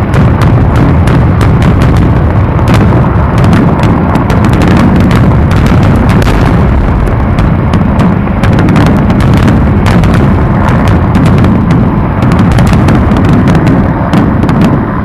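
Fireworks display: a dense, continuous barrage of aerial shells bursting, many bangs and crackles overlapping with a heavy low rumble.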